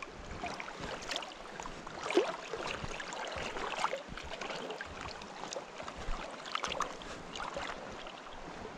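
Shallow stream water sloshing and splashing close by as someone wades slowly through it, with many small splashes and knocks and one louder splash about two seconds in.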